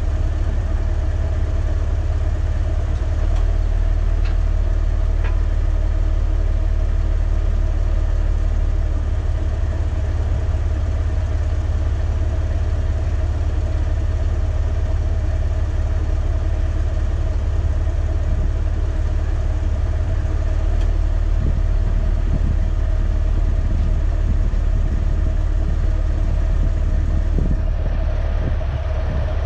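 Off-road vehicle's engine idling steadily while the vehicle stands still.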